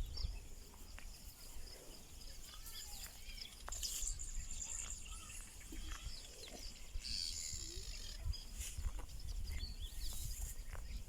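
Outdoor farm ambience: wind rumbling on the microphone, with scattered short, high bird chirps and a few faint knocks.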